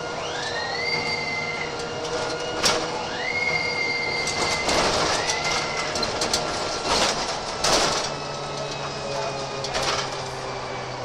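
On board a DAF SB200 Wright Commander bus under way: a high drivetrain whine rises in pitch and levels off three times over the steady running of the engine. Knocks and rattles come from the body, loudest in the middle.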